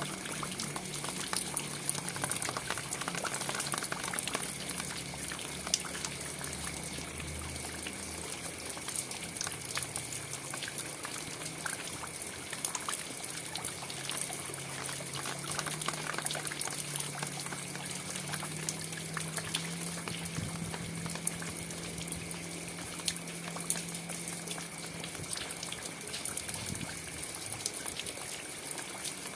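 Steady rain falling, an even hiss dotted with many separate drop ticks. A low hum runs underneath, shifting slightly in pitch.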